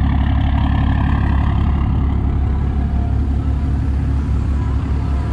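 Ram heavy-duty pickup's Cummins turbo-diesel straight-six running at low speed as the truck passes close by, a steady low rumble.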